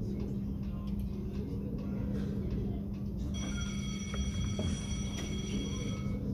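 Merkur Tizona slot machine sounding its ringing win chime, a steady multi-tone jingle that starts about three seconds in and lasts about three seconds as a winning line pays out. A steady low hum runs underneath.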